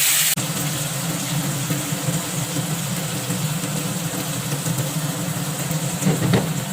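A steady low mechanical hum under a fainter sizzle of tomato and onion paste frying in a pan, with a short clatter of stirring near the end.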